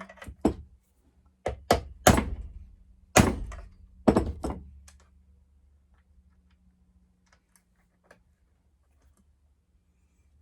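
A run of about eight sharp knocks and thunks on the bench while a chainsaw handlebar's anti-vibration buffer is worked into place, the loudest between about two and four and a half seconds in. After that only a faint steady low hum remains.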